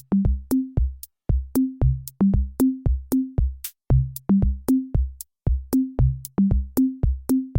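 Electronic background music: a steady drum-machine beat over a stepping bass line.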